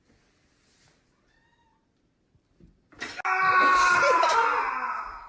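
Near silence, then about three seconds in a cat lets out one long, loud yowl of about two seconds, its pitch sagging slightly towards the end.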